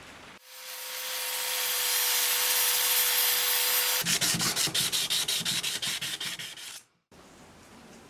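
Abrasive sanding or grinding: a steady hiss with a motor whine for about three and a half seconds, then fast rhythmic scraping strokes, about six or seven a second, which stop abruptly near the end.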